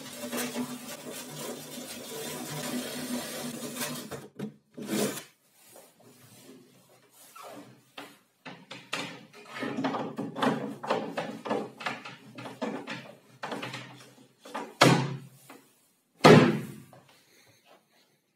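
Cordless drill running steadily as it drives a fastener into the plywood cabinet side, stopping about four seconds in. Then come wooden knocks and clattering handling sounds, with two loud wooden thumps near the end.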